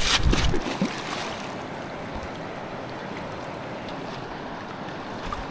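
Steady, even rush of a river's flowing water, with a few low thumps in the first second.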